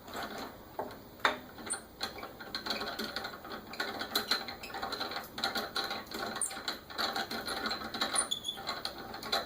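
Rapid small mechanical clicks and scraping from handwork on a metal lathe mounting plate, with a few sharper clicks in the first two seconds.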